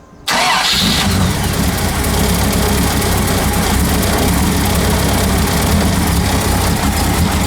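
Carburetted 4.6-litre Rover V8 starting: it catches abruptly about a third of a second in and settles straight into a steady, even idle with a 285 camshaft. It idles smoothly with no ticking, now that an Edelbrock 500 carburettor and an RPi ignition kit are fitted.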